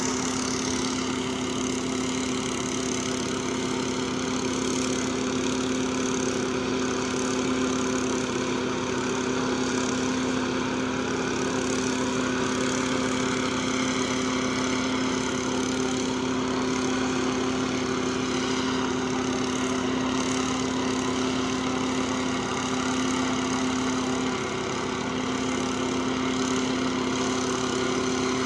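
Small portable engine-driven machine running steadily at constant speed, a continuous drone with a strong low hum.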